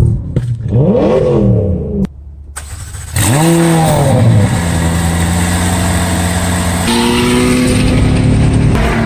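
Sports car engines revving in quick rising and falling blips, then a quieter gap of about a second. One engine then revs up and falls back and settles into a steady drone, which steps up to a higher steady note about seven seconds in.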